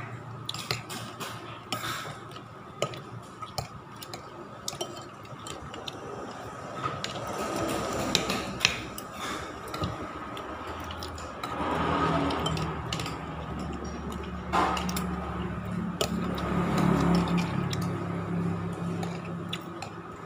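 A metal spoon clinks and scrapes against a plate in scattered light taps while someone eats. Music plays in the background, stronger in the second half.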